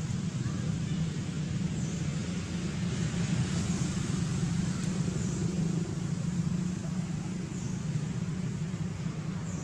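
Steady low rumble of distant road traffic. A few faint, short, high chirps come through over it.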